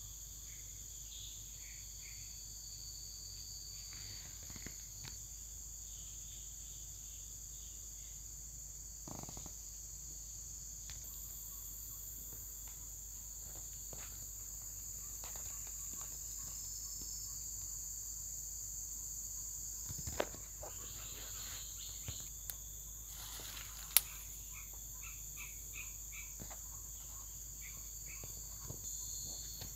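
Steady high-pitched insect chorus, several bands of chirring held without a break, with scattered faint clicks and rustles and one sharp tick about three quarters of the way through.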